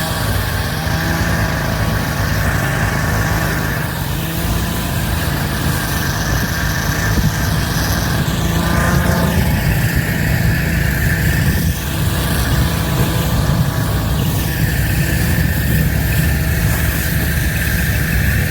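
Snowmobile engine running steadily while towing a skier, its pitch drifting up and down a little with the throttle, with a heavy low rumble of wind on the microphone.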